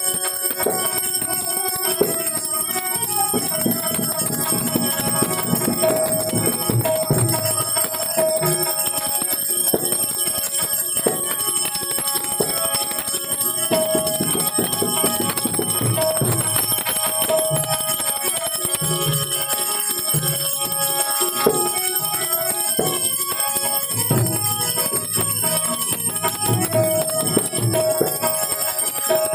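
Devotional folk music without singing: a harmonium holding a melody over a steady drum beat, with a bright metallic ringing on top.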